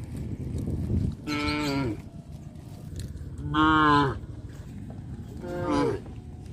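Cows mooing: three separate calls a couple of seconds apart, each about half a second long and dropping in pitch at the end, over a steady low rumble.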